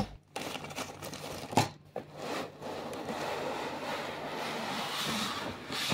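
Foam packing and a plastic-sleeved laptop scraping and rustling against a cardboard box as they are slid out, with one sharp knock about a second and a half in.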